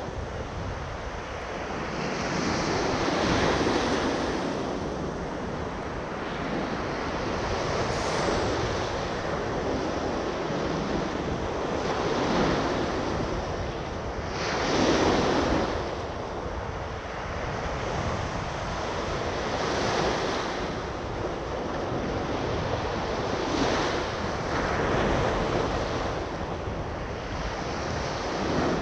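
Small ocean waves breaking and washing up the sand at the shoreline, the surf swelling and fading every few seconds, loudest about halfway through. Wind buffets the microphone throughout as a low rumble.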